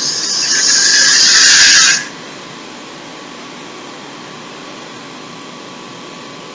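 Water being poured into a baking tray of vegetables: a rushing pour that builds for about two seconds and then stops abruptly.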